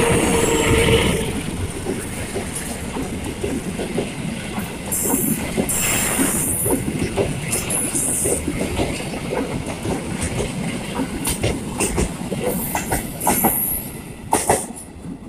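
A passenger train passing close by: the diesel locomotive's engine is loudest in the first second, then the coaches' wheels clatter over the rail joints, with brief high wheel squeals now and then.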